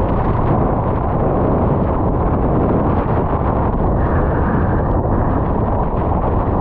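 Typhoon gale buffeting the microphone: a loud, unbroken wind noise, heaviest in the low end, with no let-up.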